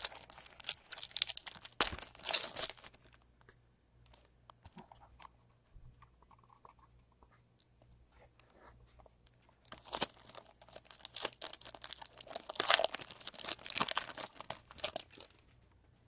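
Foil trading-card pack wrapper being torn open and crinkled by hand. There are two stretches of crackling, one at the start and a longer one from about ten seconds in, with small clicks and rustles between.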